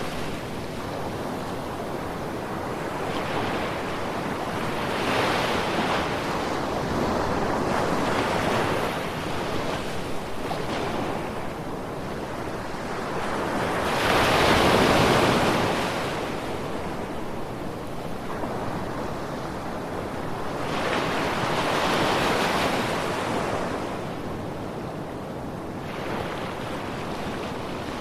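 Ocean surf: waves break and wash in over a steady rush, swelling and fading every few seconds. The biggest wave comes about halfway through, and another follows several seconds later.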